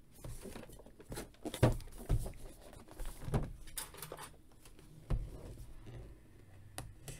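Hands handling and turning over an action figure's cardboard box with its plastic window: scattered light knocks, taps and rustles of the packaging.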